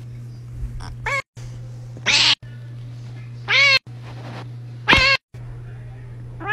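Tabby cat meowing four times, short rising-and-falling calls about a second apart, over a steady low hum.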